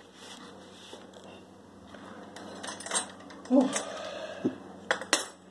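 Steel hand-lever paper-log press clinking and clanking as its handles are worked and swung open, with several sharp metal knocks from about halfway in.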